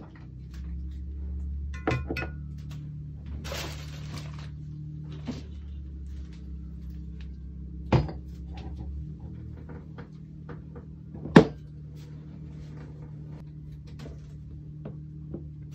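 Metal and plastic espresso-maker parts being set down one at a time on a rubber mat: a few separate knocks, the loudest about eleven seconds in, and a brief rustle about three and a half seconds in. A steady low hum runs underneath.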